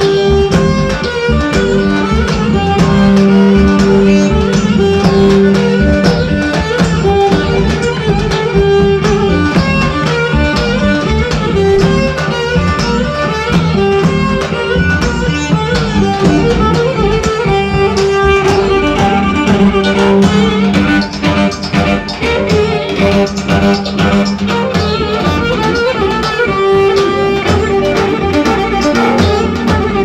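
Loud Roman havası dance music with a steady beat and a melody running over it.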